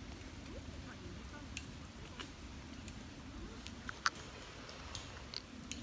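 Firewood crackling in a small camp fire stand, with scattered sharp pops, the loudest about four seconds in.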